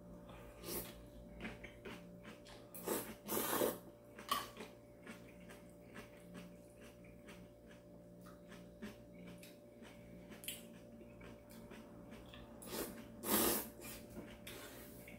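Thin instant ramen noodles being slurped and eaten with chopsticks: a series of short slurps, the loudest about three seconds in and again near the end, over a steady low hum.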